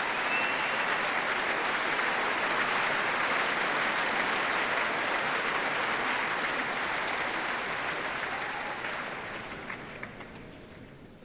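Large concert-hall audience applauding, steady at first and then dying away over the last few seconds.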